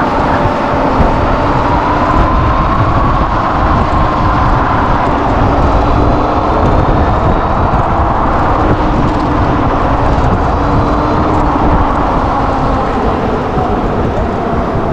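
Wind rushing and buffeting over a head- or body-mounted action camera while riding a VSETT 11+ electric scooter at speed, a steady loud rumble. Under it runs a faint whine from the scooter's hub motors that rises and falls gently with speed.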